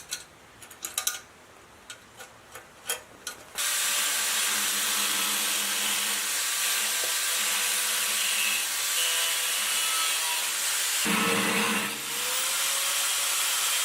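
Scattered light clicks and knocks of tools being handled, then about three and a half seconds in a power tool starts and runs steadily with a loud, hissy noise. Its tone shifts about eleven seconds in.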